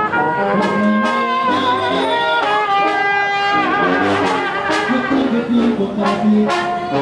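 Live Mexican banda music in an instrumental passage: brass and wind instruments play a melody of held notes with a wavering vibrato over a tuba bass line, with percussion and cymbal strikes throughout.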